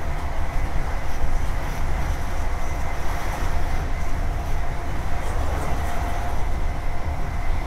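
Class 43 HST power car, with its Paxman VP185 diesel, running along the line: a steady heavy rumble with a constant whine held through.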